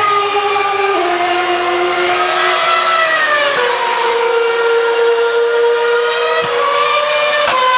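Formula One car's 2.4-litre V8 engine running at high revs, its pitch stepping down about a second in and sliding lower around three and a half seconds in, then held steady before a sudden jump in pitch near the end.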